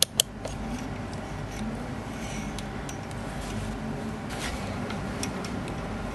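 Two sharp clicks about a third of a second apart as the push button on a Pro'sKit MT-1210 digital multimeter is pressed and released. After them comes a steady low hum with a few faint ticks.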